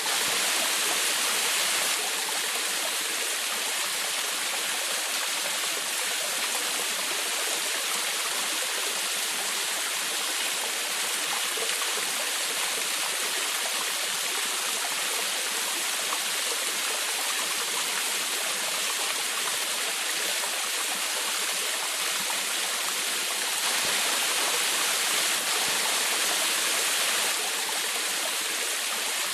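Small forest waterfall splashing and rushing without a break: a steady, mostly high hiss of falling water with little deep rumble, swelling slightly twice.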